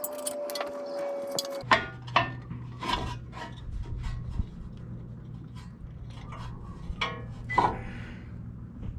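Steel tools and brake parts clinking and knocking as they are handled, with scattered sharp metallic clicks over a steady low hum. At the start a motor whines on one tone, sinking slowly in pitch, and cuts off about one and a half seconds in.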